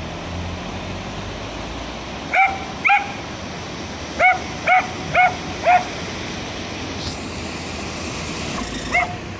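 A dog barking: two barks, then a run of four about half a second apart, then one more near the end. Underneath is a steady rush of floodwater.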